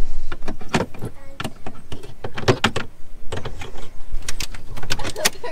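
Irregular metal clicks and clinks of sailboat hardware being handled and fitted, the blocks and fittings of the mainsheet knocking together.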